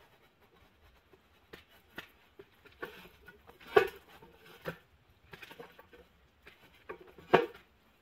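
A cut steel pipe branch being shifted and set on a 12-inch pipe: scattered metal-on-metal knocks and scrapes, with two louder clanks about four and seven seconds in.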